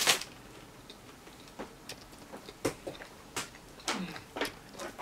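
A person chewing food, with scattered wet mouth clicks and lip smacks spread across several seconds, and a short hum that falls in pitch near the end.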